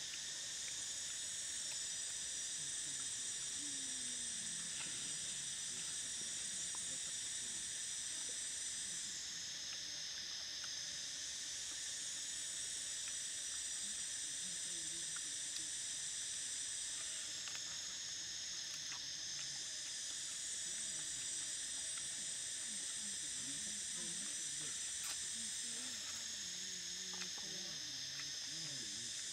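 Dense chorus of insects in the forest: a steady, high-pitched shrill that thins out briefly about every eight seconds, with faint low sounds underneath.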